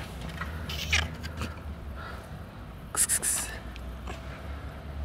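A domestic cat gives a short meow about a second in. About three seconds in there is a brief crinkling rustle of a plastic bag.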